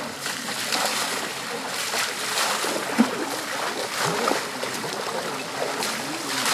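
Water splashing and sloshing in a shallow lagoon as buckets of water are scooped and thrown over bathing elephants, with one sharper smack about three seconds in.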